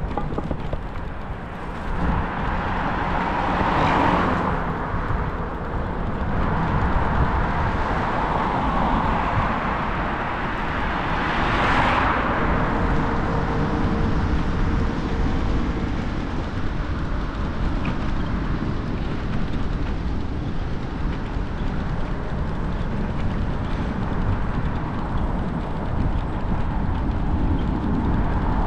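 Road traffic going past: two cars swell up and fade away about four and twelve seconds in, over a steady rumble of wind on the microphone of a moving bicycle.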